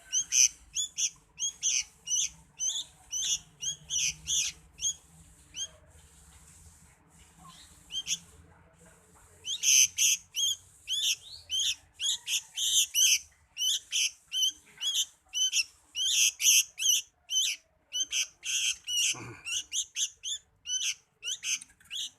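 A pet cigun (hill prinia) calls in a fast string of short, sharp, high chirps, about two to three a second. The chirps break off for a few seconds, then start again.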